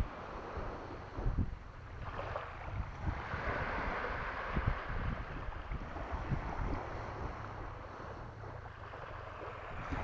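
Sea waves washing in a slow swell and fade, with wind buffeting the microphone in low rumbling gusts.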